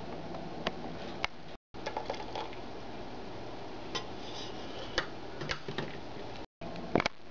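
Scattered light clinks and taps of a metal slotted spoon against a measuring cup and a stainless-steel saucepan, over steady low background noise. The audio drops out completely twice, briefly.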